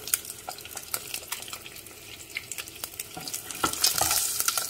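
Boiled eggs frying in hot oil in a pan: a steady sizzle with frequent sharp crackles and spits. About three seconds in a spatula scrapes and knocks in the pan as an egg is scooped out.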